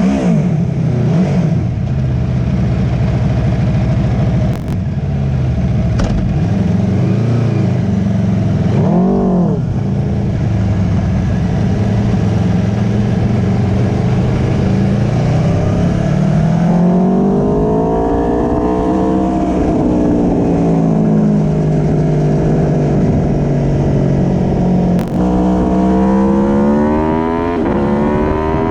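Aprilia Tuono V4 Factory's V4 engine through an Akrapovic slip-on exhaust, heard riding along. There is a quick swell in revs about nine seconds in, and the engine pulls up and eases off again past the middle. After a brief break near the end, likely a gear change, the revs climb again.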